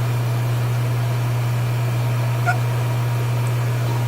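A single short hiccup about two and a half seconds in, over a steady low hum.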